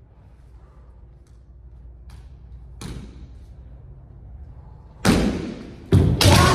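Kendo sparring: a few faint clicks of bamboo shinai touching, then from about five seconds in several loud, sudden kiai shouts, foot stamps and shinai strikes, echoing in a large hard-floored room.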